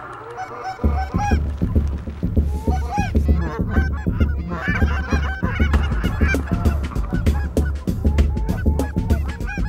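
Canada geese honking: many short, overlapping calls from a flock overhead, with a low, evenly pulsing rumble underneath from about a second in.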